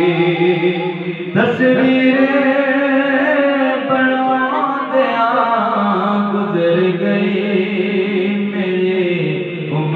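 A man singing a Punjabi naat, a devotional chant in praise of the Prophet, in long drawn-out held notes. A new phrase starts about a second and a half in.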